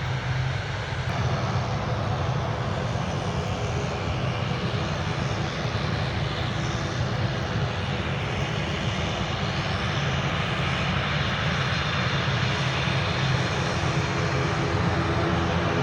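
Airliner engines running: a steady rush of engine noise over a low hum, with a slow sweep in its higher pitch, growing a little louder near the end.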